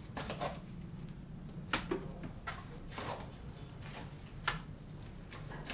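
A few sharp knocks at irregular intervals over a steady low hum.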